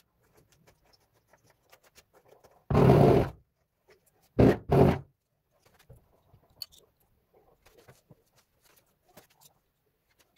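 Scraping on a ceramic tile face while tiles are being set: one longer scrape about three seconds in, then two short ones a second or so later, with faint clicks and taps of tile spacers and levelling clips between.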